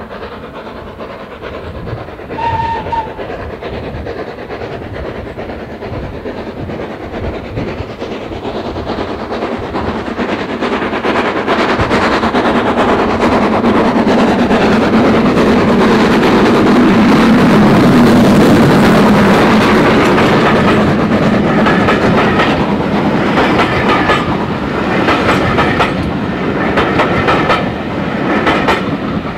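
LSWR S15 4-6-0 steam locomotive No. 506 approaching and passing at speed, its exhaust and running noise building to a peak as it goes by, followed by the rhythmic clickety-clack of its coaches' wheels over the rail joints. A brief whistle toot sounds about two and a half seconds in.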